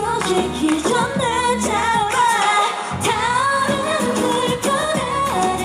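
K-pop dance track with female vocals singing over it. The bass and beat drop out about two seconds in and come back under a second later.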